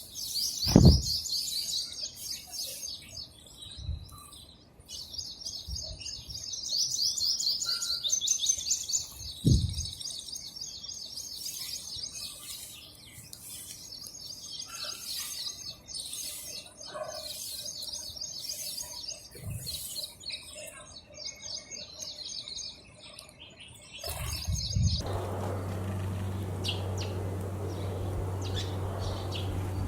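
House sparrows chirping in long runs of quick, repeated chirps, with a couple of low thumps. About 25 seconds in, the sound changes abruptly to a steady low hum with a hiss, and only a few faint chirps remain.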